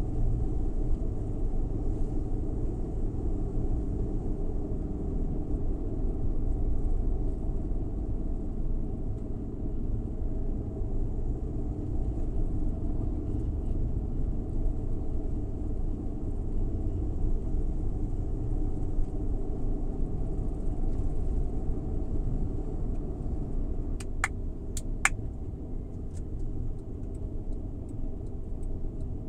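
A Suzuki Every Wagon kei van driving, a steady low rumble of engine and tyre noise. A few sharp clicks come close together near the end.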